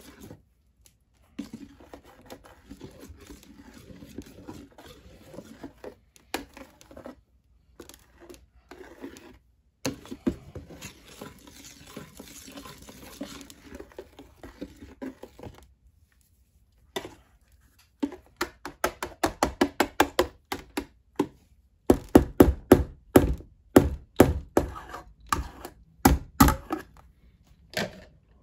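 Metal wire whisk beating thick, foamy homemade liquid soap in a plastic bowl: soft sloshing and scraping at first, then quick rhythmic strokes, about four a second, knocking against the bowl, loudest in the last third.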